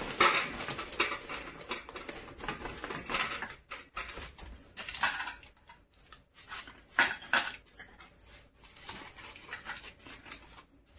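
Hands pressing and stretching pizza dough across a wax-paper-lined baking tray: irregular rustling of the paper with light pats and scuffs, in bursts with short pauses between.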